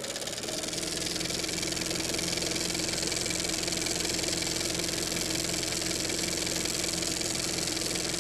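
Steady machine-like hum: several held low tones over an even hiss, unchanging throughout.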